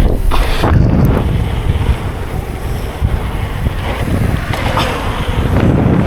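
Wind buffeting the microphone of a rider's camera on a fast mountain bike descent, with the rumble and clatter of tyres and bike over a rough dirt trail.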